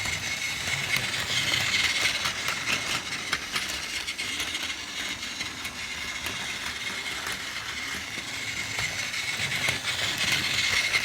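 Battery-powered Plarail Doctor Yellow toy train running on plastic track: a steady small-motor whirr with a high whine and rapid clicking rattle, growing louder about two seconds in and again near the end as it passes close.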